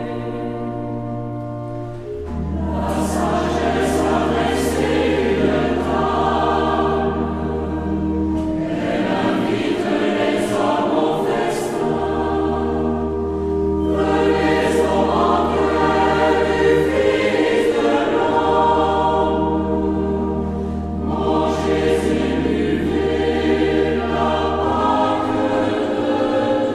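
Choir singing a slow religious hymn in phrases of a few seconds each, over held low chords that change with each phrase.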